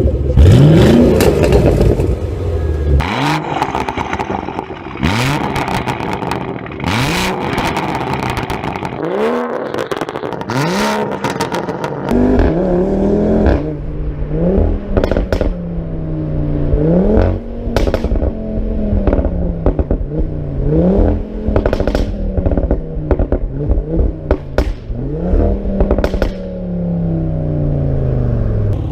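A high-performance car engine revved again and again, each rev climbing in pitch and then dropping off with sharp exhaust pops and bangs, the crackle of a tuned or decatted exhaust on overrun. In the second half the revs come as a steady run of rises and falls with lighter crackling.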